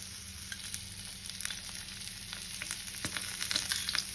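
Semolina-coated croaker fish shallow-frying in oil on a flat tawa: a steady sizzle with scattered crackling pops that grow louder and more frequent in the second half.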